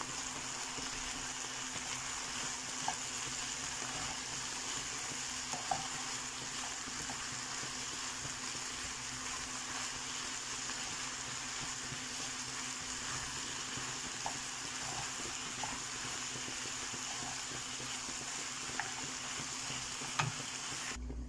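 Diced potatoes, tomato, onion and chile sizzling steadily in a pan while being stirred with a wooden spoon, with a few light taps of the spoon against the pan.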